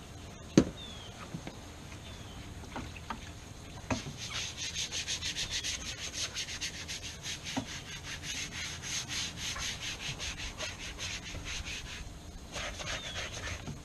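Rapid back-and-forth scrubbing on a boat's vinyl interior during cleaning, an even scratchy rhythm of about four or five strokes a second that starts about four seconds in and runs for several seconds. A sharp click comes about half a second in.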